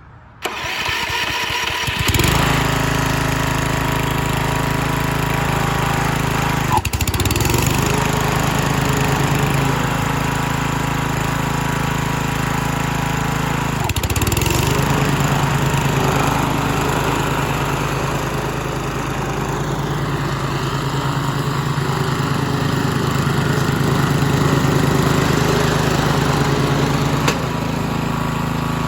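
Cub Cadet CC600 walk-behind mower's 224 cc engine starting up about half a second in and settling into steady running by about two seconds in. Twice the engine note sags briefly and recovers, and it starts easily and runs fine.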